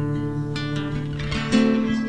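Acoustic guitar music, several chords struck in turn.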